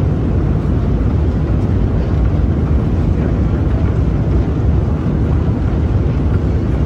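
Long metro escalator running, a steady low rumble of its machinery and moving steps echoing in the inclined tunnel.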